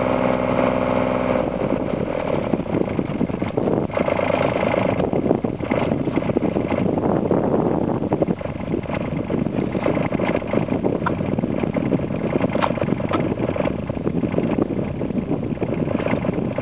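Mini excavator's diesel engine running steadily close by.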